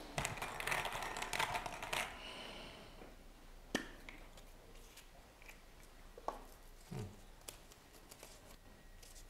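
Rustling and light clicking as a draw lot is handled and opened, busiest in the first two seconds, then a few separate clicks.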